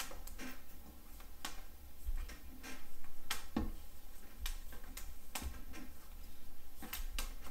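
Light, irregular clicks and taps of fishing line and a wooden dowel being handled as the leader is wrapped around them by hand, over a faint low rumble.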